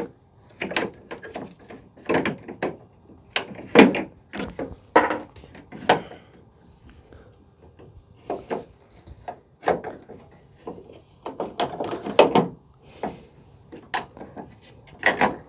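Irregular knocks, clicks and rattles of a tailgate damper strut and its fittings being handled and worked into place on a pickup tailgate, with short pauses between the strokes.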